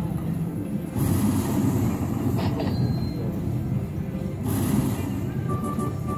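Casino floor din: a steady murmur of machines and people, with short electronic slot machine tones coming in near the end.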